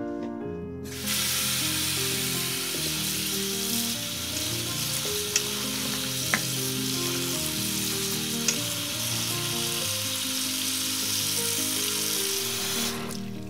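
Tap water running onto water spinach in a stainless-steel colander: a steady hiss that starts suddenly about a second in and stops near the end, with a few light clicks as the leaves are handled.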